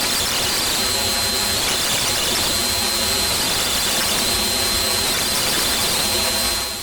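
Distorted radio signal sound effect: static hiss with a thin steady high whistle through it, and a buzzy tone that pulses in four times, roughly every one and a half to two seconds. It starts suddenly.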